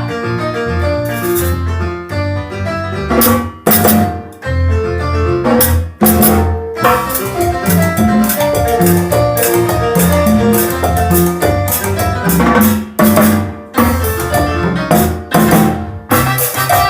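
Live band playing the instrumental introduction of a tropical Latin song: a keyboard melody over drum kit, with sharp drum fills.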